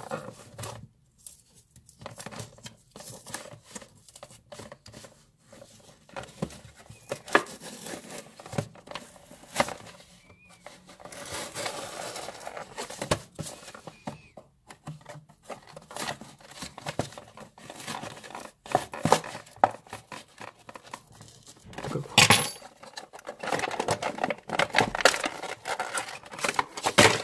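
Clear plastic blister packaging crinkling and crackling as it is slit along its edge with a small metal blade and pried apart, in irregular clicks and scratches. The crackling grows louder and denser near the end as the blister is pulled open.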